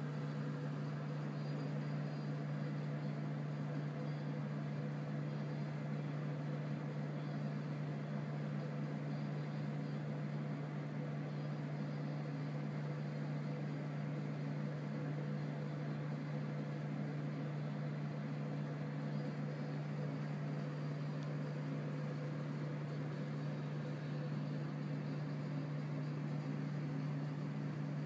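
A steady low mechanical hum with a faint hiss, unchanging throughout.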